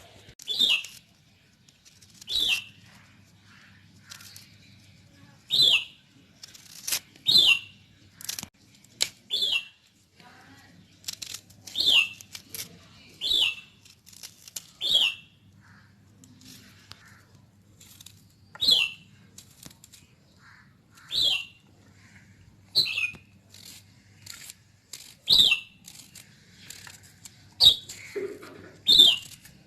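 A small bird chirping repeatedly: short, sharp calls, each dropping in pitch, every one to three seconds, over a faint steady low hum.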